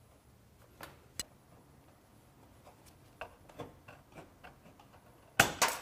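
Aviation snips cutting sheet-metal valley flashing for a square cut: a few faint clicks and ticks as the snips are handled and set on the metal, then a loud, crisp double snip near the end.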